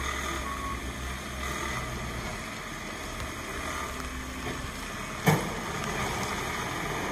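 Steady diesel drone of a road-rail excavator working on the track, with wind buffeting the microphone. A single sharp knock about five seconds in.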